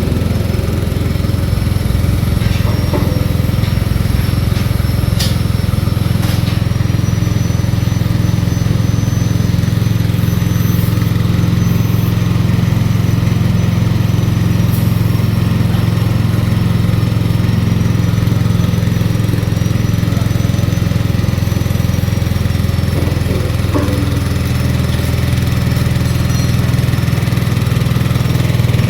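MAR-C A200 coconut-milk press running steadily with a low, even hum while grated coconut pulp is fed through it for another pressing, with a faint high whine and a few brief clicks.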